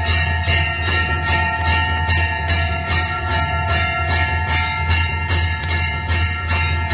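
Temple bell rung continuously with quick, even strokes, about three a second, each stroke landing on the ringing of the last so that its tones hang on without a break. A steady low hum runs underneath.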